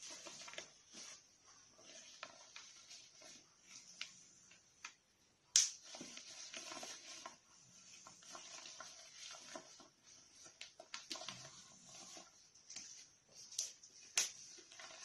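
A cloth nappy wrap rustling as it is handled and folded, with a few sharp clicks of its snap fasteners (poppers) as it is set to the smallest size, the loudest about five and a half seconds in and two more near the end.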